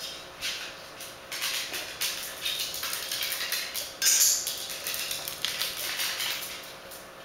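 A corgi's claws clicking and pattering on a tiled floor as it moves about, with a louder sharp clack about four seconds in as it paws at the table's metal leg.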